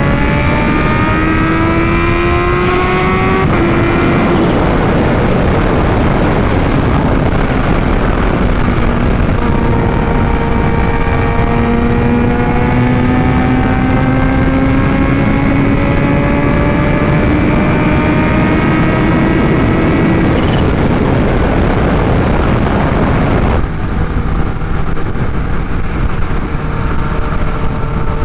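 Kawasaki Ninja H2's supercharged inline-four through a full titanium Vandemon exhaust, pulling on the highway with its note slowly rising in pitch and breaking off briefly about three and a half seconds in, under heavy wind rush. Near the end the engine note fades into the wind.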